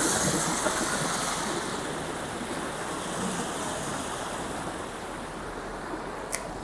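Muddy flash-flood water rushing along a roadside gully, loudest at first and easing off over the next couple of seconds, with a coach passing on the wet road about halfway through. A short click near the end.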